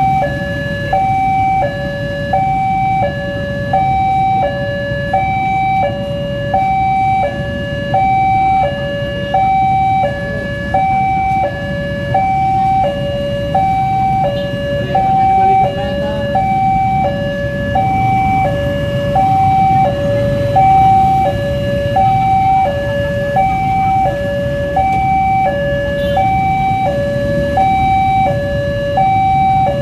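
Railway level-crossing warning alarm sounding its electronic two-tone signal, a high note and a low note alternating about every 0.7 s without a break: the crossing is closed for an approaching train. A low rumble of idling traffic runs underneath.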